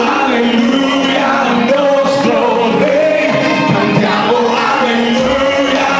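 Live gospel worship song: a man sings lead into a microphone over the band, with the congregation singing along.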